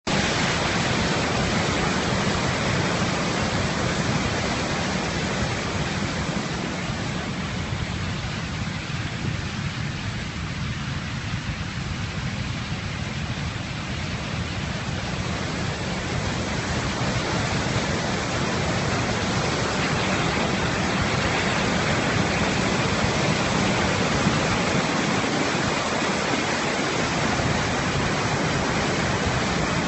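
Storm floodwater rushing in a steady, loud roar of water, easing a little midway and building again.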